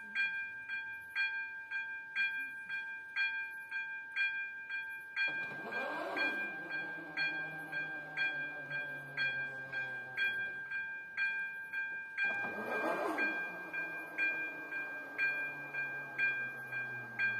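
Level-crossing warning bell ringing about twice a second. The electric barrier drives start about five seconds in and again about twelve seconds in, each with a whine that falls slowly in pitch as its arm lowers.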